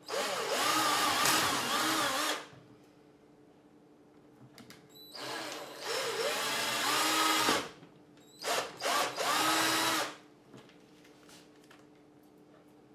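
Cordless drill running in three bursts as a 1/4-inch bit bores holes through a rifle stock. The motor's pitch dips and recovers as the bit bites.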